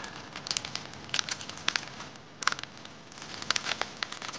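Crinkling and crackling of a Mamasuka pancake-mix packet being handled: a string of irregular sharp crackles.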